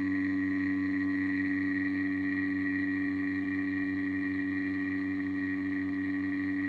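Steady machine hum holding several constant tones, a strong low hum with a fainter high whine above it, unchanging throughout.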